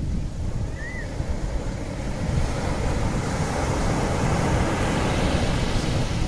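Wind blowing hard across the microphone, a low rumbling buffet that grows gradually louder. A short high chirp sounds about a second in.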